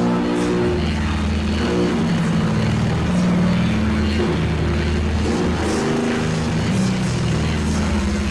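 Harsh noise music: low, heavily distorted guitar notes that shift every second or so, buried in a dense, hissing wall of noise.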